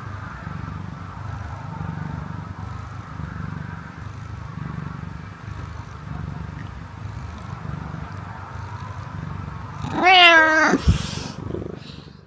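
A domestic cat purring steadily with a low, gently pulsing rumble, then one loud meow about ten seconds in, followed by a short click.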